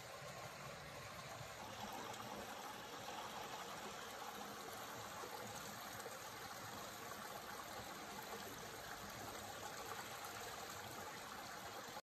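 Small mountain stream running over rocks and boulders in a steady, even rush of water.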